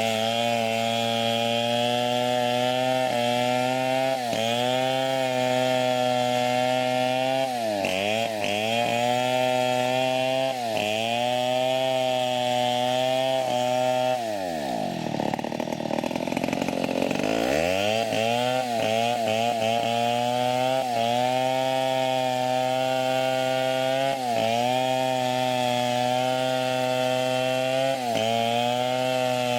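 Chainsaw running at high revs, cutting old teak, its pitch sagging briefly several times under load. About halfway through, the throttle is let off and the engine slows nearly to idle for a couple of seconds, then revs back up and carries on cutting.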